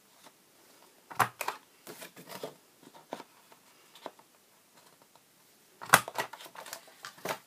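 Plastic envelope punch board punching notches into card stock, with sharp clacks about a second in and a louder cluster near six seconds, and light clicks and rustles of the stiff card being slid and turned on the board between them.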